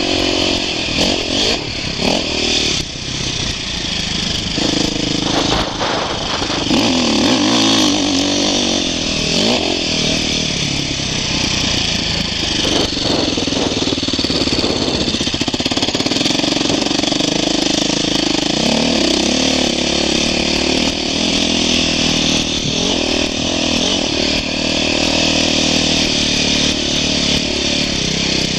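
2008 KTM 450 XC-F dirt bike's single-cylinder four-stroke engine running under way on a dirt trail, its revs rising and falling as the throttle is worked.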